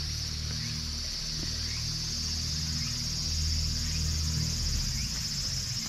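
Steady high-pitched insect chorus droning in the forest, swelling slightly about halfway through, with a low steady hum underneath.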